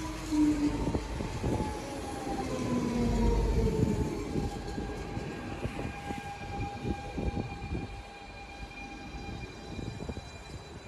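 Electric DSB S-train moving along the line and fading away. A whine from its drive slides slowly down in pitch over scattered rail clicks.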